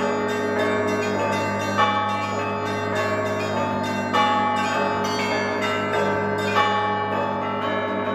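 Orthodox church bells of the Zhirovichi Monastery rung together: smaller bells struck rapidly in a repeating pattern over the sustained hum of a large bell, with a louder stroke about every two and a half seconds.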